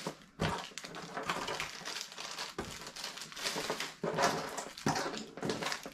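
A small clear plastic bag crinkling and rustling as it is handled and opened, with a run of sharp crackles.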